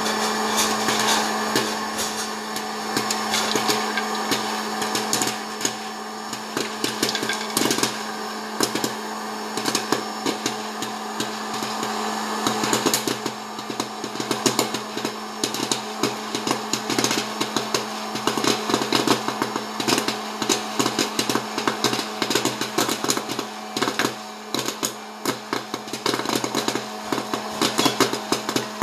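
Hot-air popcorn maker running: its fan motor hums steadily under a rush of blown air while kernels pop in quick irregular snaps, coming thicker from about halfway through as the batch gets going.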